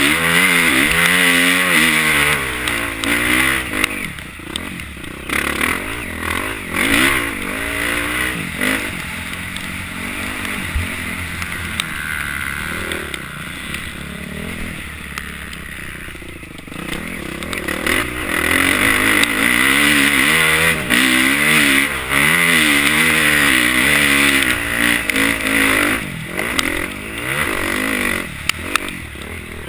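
Motocross bike engine heard from the rider's helmet, revving up and down through the gears. Hard on the throttle for the first few seconds, easing off from about four seconds in, then back on hard from about seventeen seconds in.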